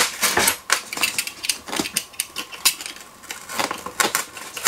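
Snap-off utility knife cutting the tape along the seam of a polystyrene foam box: a run of irregular scratchy clicks and scrapes as the blade works against the tape and foam.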